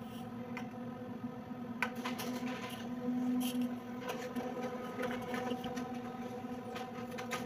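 Canon imageRUNNER office copier running with a steady hum. From about two seconds in, irregular clicks and paper-rustling sounds join it.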